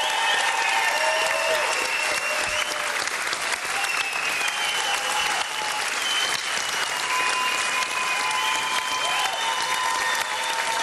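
Large studio audience applauding steadily, with voices cheering and calling out over the clapping.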